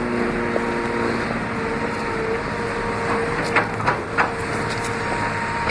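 Demolition excavator running with a steady engine drone, with a few sharp knocks about three and a half and four seconds in.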